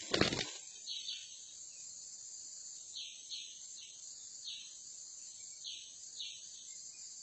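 Brief scuffle of flapping wings as two junglefowl roosters clash at the start. It gives way to a steady high insect drone with short high chirps every second or so.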